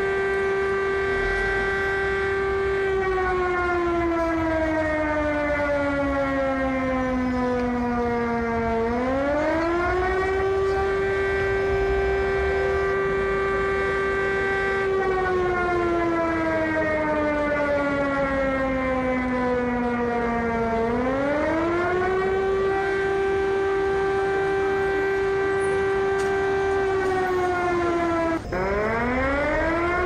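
Air-defense siren sounding in a repeating cycle. It holds a steady tone for several seconds, then slowly falls in pitch over about six seconds and quickly rises back up, about every twelve seconds. Near the end it breaks off for an instant and climbs back up.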